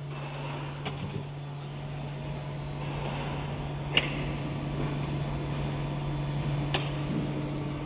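Extrusion blow molding machine running with a steady hum and a faint high whine, with a few sharp clicks, the loudest about four seconds in.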